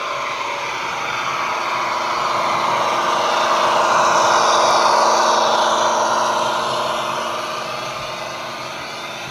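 00 gauge model train running past: a model diesel locomotive's engine sound over the running noise of the train, steady, growing louder to about halfway and then fading.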